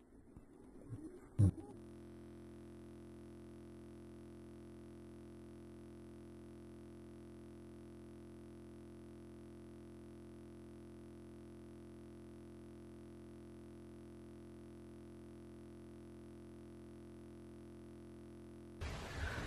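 A single sharp bang about a second and a half in. Then a flat, unchanging electronic hum of several steady tones takes over and cuts off suddenly near the end.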